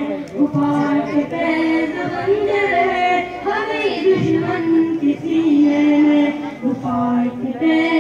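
A group of voices singing a tarana in long held notes, phrase after phrase with short breaks between them.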